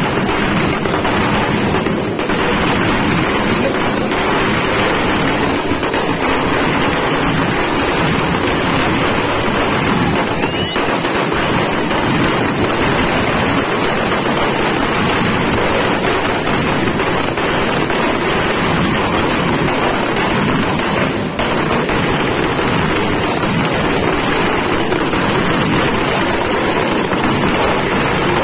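Ground firework fountains spraying sparks: a loud, steady rushing hiss with no separate bangs, dipping briefly a couple of times.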